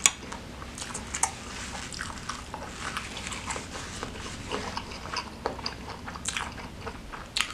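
Close-up wet chewing of bakso meatball and fatty beef in spicy broth: irregular lip smacks and mouth clicks, with a sharp click right at the start.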